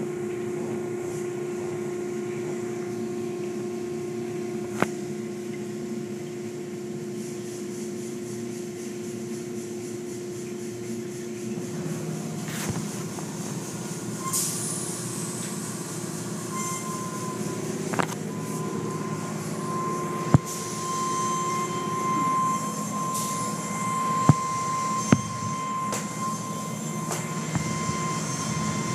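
Automatic car wash machinery heard from inside the car: water spray and cloth strips washing over the glass over a steady machine hum. The hum's pitch changes about halfway through, and there are a few sharp knocks on the car.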